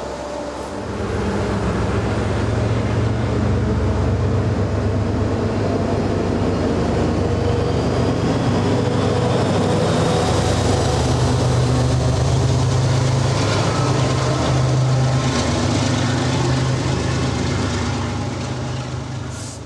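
A passenger train passing close by at speed: a loud rumble of wheels on rail that builds about a second in, holds steady, and fades near the end.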